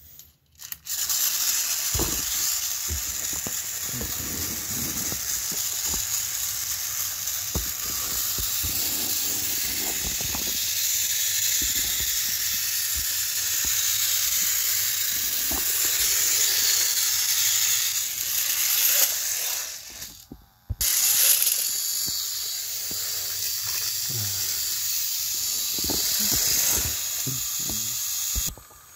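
A loud, steady hiss with a few scattered knocks. The hiss cuts out for about half a second around twenty seconds in, then returns and stops abruptly near the end.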